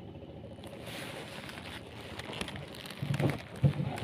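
Wind and handling noise on the microphone, with two dull thumps about three seconds in.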